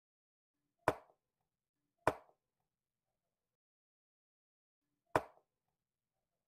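Three sharp clacks from chess play, wooden chess pieces and a digital chess clock being struck: one about a second in, another a second later, and a third about three seconds after that.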